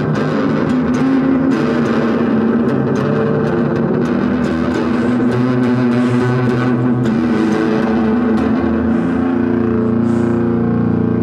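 Rock soundtrack music led by a distorted electric guitar over bass, playing long held chords that change every few seconds.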